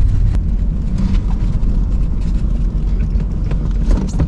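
Pickup truck running on a snow-packed road: a steady low rumble of engine and tyres, with a few scattered clicks and knocks.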